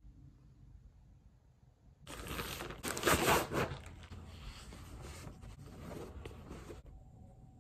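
Rustling of clothing being handled and shaken open, starting about two seconds in, loudest about a second later, then trailing off.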